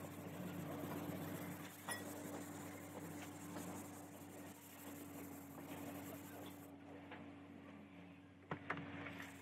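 Hand sanding body filler on a car door panel with a hand-held sanding pad: a faint, steady scratchy rasp of abrasive on filler, over a low steady hum, with a couple of sharp clicks near the end.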